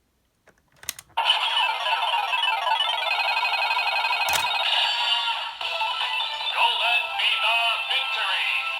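Bandai DX Fever Slot Raise Buckle toy on the Desire Driver belt: a few plastic clicks, then its small speaker plays tinny electronic music, with a synthesized voice calling out "Golden Fever Victory" near the end. A single sharp click comes about four seconds in.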